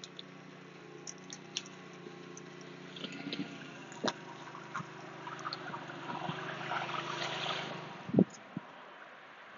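Forklift engine running steadily as it drives across gravel, with the crunch of its tyres growing louder as it comes close. A sharp knock about eight seconds in.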